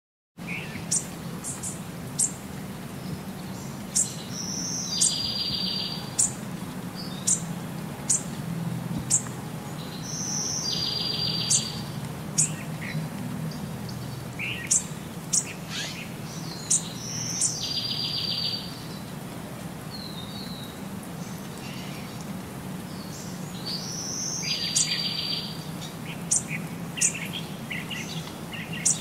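Small birds chirping, with a short buzzy call coming back about every six or seven seconds, over a steady low hum.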